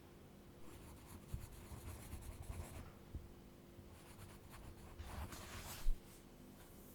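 Scratchy strokes of a drawing tool on paper, coming in a long run of strokes and then two shorter ones. A dull low thump near the end.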